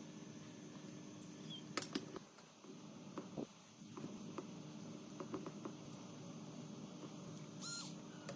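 Faint scattered clicks and small taps over a low steady hum, with a short electronic beep near the end.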